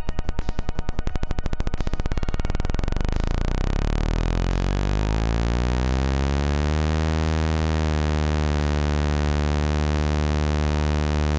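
Example of a single-cylinder engine's firing pulses at rising revs: separate pops come faster and faster until they blur into a steady low buzz at about 75 pulses a second, the sound of one cylinder at 9,000 rpm. The pitch rises for the first several seconds and holds steady from about seven seconds in.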